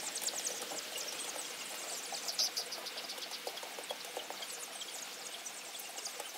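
A flock of month-old indigenous chicks peeping and cheeping, many short high calls overlapping over a steady hiss.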